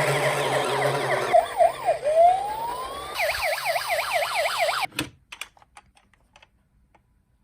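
Electronic sirens of toy police cars and ambulances sounding together: several overlapping, fast rising-and-falling wails. They cut off about five seconds in with a click, followed by a few light clicks.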